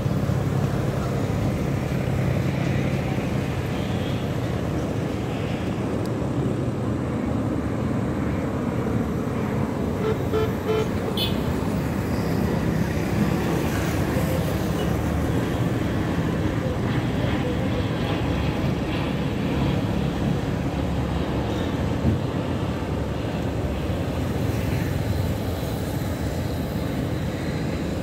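Steady rumble of road traffic from passing motorcycles, buses and cars, with a few short horn toots about ten seconds in.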